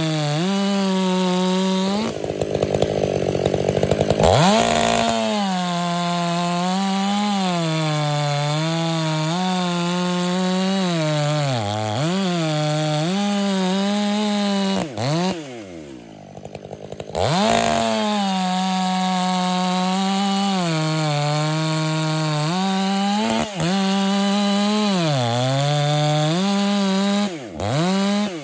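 Stihl 500i fuel-injected two-stroke chainsaw with a dual-port muffler, run at full throttle through log rounds on a 25-inch bar. The engine pitch sags and recovers again and again as the chain loads up in the cut, and about halfway through the throttle is briefly let off to a low idle before it revs back up.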